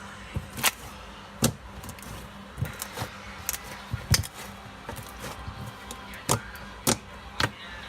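Fluffy slime being squeezed and poked by hand, giving about ten irregular sharp pops and clicks.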